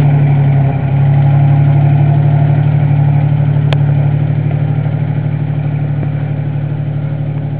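Toyota 4Runner's engine running steadily at low revs as the truck crawls over rock ledges, slowly fading as it pulls away. A single sharp click sounds a little before four seconds in.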